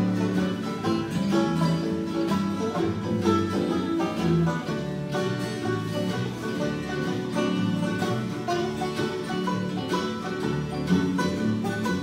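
A group of acoustic string players jamming a bluegrass-style tune together: acoustic guitars and a mandolin playing without pause.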